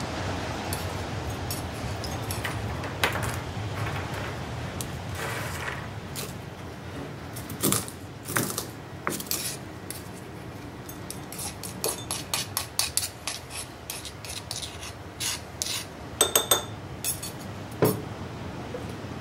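A metal spatula scraping and tapping inside a mortar as crushed walnuts are scooped out into a glass beaker, giving irregular scrapes, clicks and clinks. Near the end comes a quick run of ringing glassy clinks, then a sharp knock as the glass beaker is set down on a scale.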